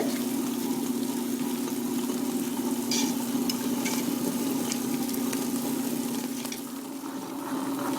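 Electric grinder running with a steady hum, grinding soaked urad dal into batter with a wet churning noise. A few faint clicks come about three seconds in.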